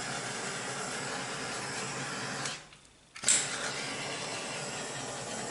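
Handheld butane torch flame hissing steadily as it is passed over a wet acrylic pour. It cuts out briefly about two and a half seconds in, then comes back with a sharp burst as it is relit.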